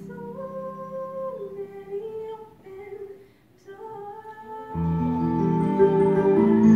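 A girl singing a slow, held melody alone; about two-thirds of the way in, a fuller and much louder accompaniment with low sustained notes comes in beneath the voices.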